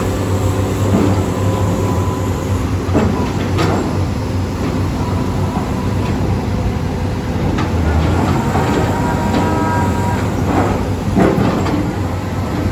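Heavy diesel construction machinery running with a steady low engine drone, with scattered metallic clanks and a few short squeals.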